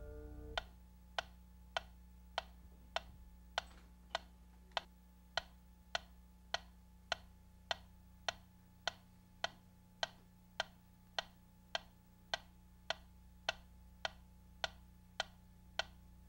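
Small pyramid-shaped mechanical metronome ticking steadily, a little under two ticks a second, each tick a short sharp click.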